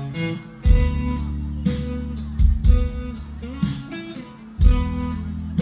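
Live rock band playing an instrumental passage: electric guitar chords over bass and drums, with heavy accented hits about every two seconds and cymbals washing over the top.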